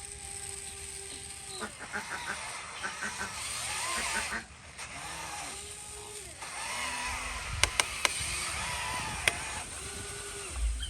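Small electric motors of radio-controlled construction models whining in short runs, each rising and then falling in pitch as it starts and stops, with a few sharp clicks about two-thirds of the way through.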